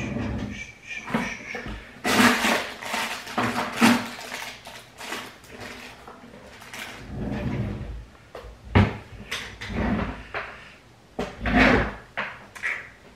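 Handling noise close to the microphone: irregular rustling with light knocks and clinks of small items being picked up and put down.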